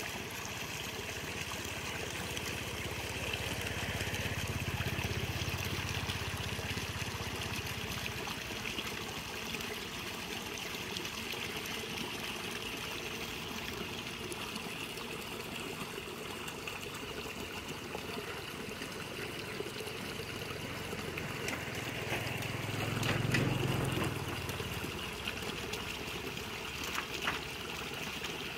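Water trickling steadily in a small irrigation ditch. A low rumble swells twice, the second time, about two-thirds of the way through, the loudest.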